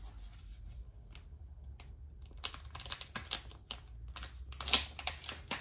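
Stiff plastic packaging crackling and clicking as fingers peel open a sealed trading-card repack. The clicks are irregular and grow busier and louder in the second half.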